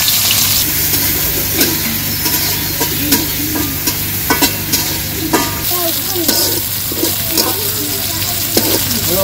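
Sliced onions and green chillies sizzling in hot oil in a steel karahi, with the metal spatula scraping and clicking against the pan as they are stirred.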